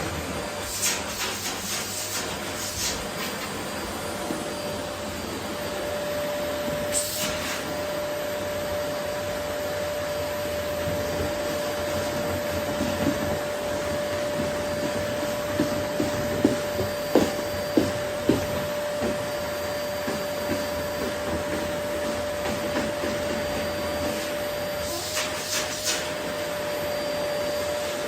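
Vacuum cleaner running steadily with a constant whine while vacuuming up rose petals, with brief hissing rushes now and then and a cluster of short knocks a little over halfway through.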